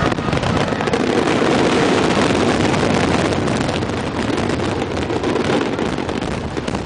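Finale barrage of drum-can fireworks set off on the sea, many bursts and crackles running together into a continuous loud rumble that fades near the end.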